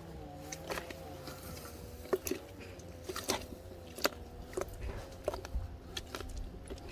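Crushed grapes being pressed through a strainer with a potato masher: wet squishing with irregular clicks and knocks.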